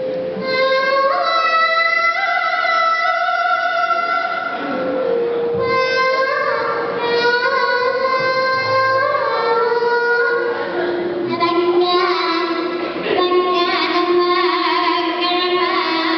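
A young girl's solo voice singing a Javanese sindhen vocal line, holding long notes that step and slide between pitches and sink lower in the second half, with gamelan instruments beneath.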